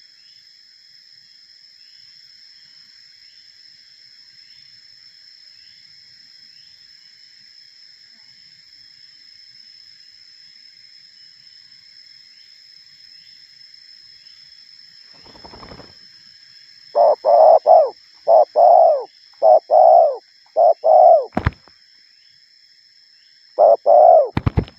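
Spotted dove cooing at close range: a run of loud, short coos starting about two-thirds of the way through, a pause, then another short bout near the end. A steady high insect drone runs behind, and a couple of sharp snaps come between and at the end of the coos.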